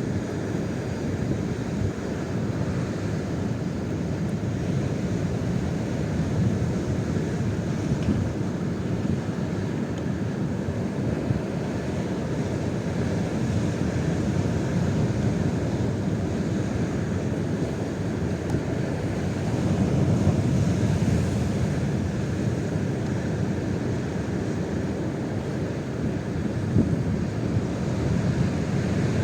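Strong gale wind buffeting the microphone: a steady low rush that swells about twenty seconds in.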